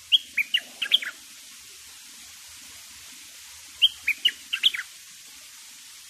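A bulbul singing two short phrases of quick notes, one at the start and another about four seconds in.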